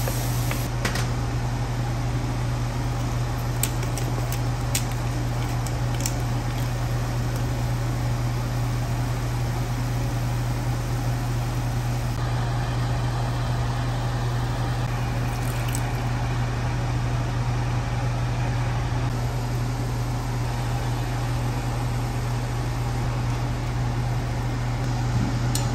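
A steady low mechanical hum throughout, with a few light clicks in the first several seconds and the soft scraping of a wooden spatula stirring thick tomato sauce in a pot.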